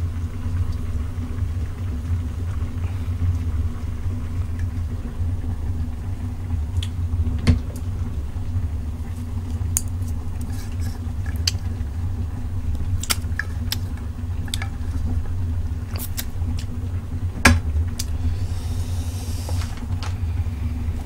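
Chopsticks tapping and scraping a small tin of spicy tuna as it is emptied into a pot of ramyeon. Scattered sharp clicks, the loudest about seven and a half and seventeen and a half seconds in, over a steady low hum.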